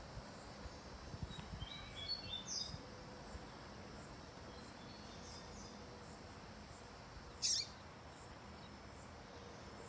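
Papa-capim seedeater giving a few short, broken chirps about two seconds in and one loud, sharp high call about seven and a half seconds in. These are scattered notes short of its full song: the bird is on the point of starting to sing.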